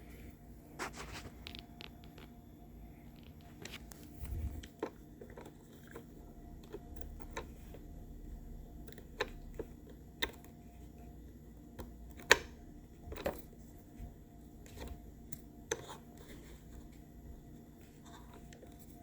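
Tweezers clicking and scraping against a Roomba's plastic parts while picking out debris: irregular small clicks and scratches, the sharpest a little past the middle.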